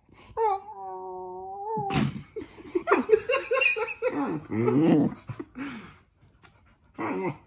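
A four-month-old Bernese mountain dog puppy vocalizing at close range. It starts with a high whine, then about two seconds in comes a louder run of rough, rising and falling play grumbles and yowls. One more short call follows near the end.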